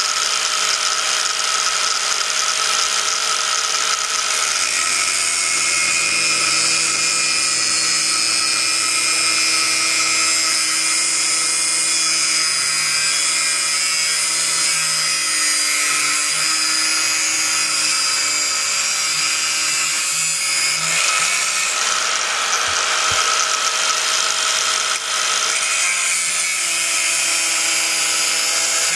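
A small electric power tool cutting through a bait pump's tube, running with a steady high whine. Its pitch wavers slightly as it bites into the tube.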